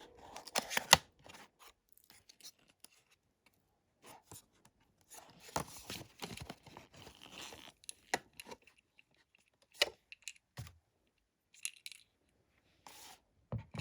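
Perfume packaging being handled and opened: papery rustling and tearing in short spells, with scattered sharp clicks and taps between quiet gaps.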